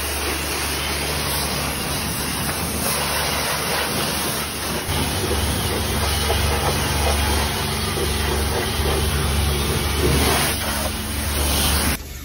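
High-pressure car-wash lance spraying water over a car's foam-covered body: a loud, steady hiss with a low hum underneath. It stops abruptly near the end.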